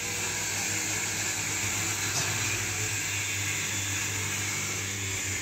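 Steady hum and whir of an electric motor running, with a constant low drone and a hiss over it.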